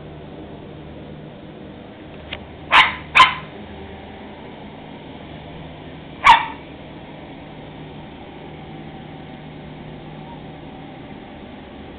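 Dog barking at a squirrel up in a tree: two quick, sharp barks about three seconds in, then a single bark about three seconds later.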